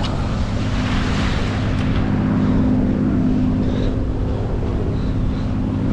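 An engine running at a steady, unchanging pitch, under wind rushing on the microphone.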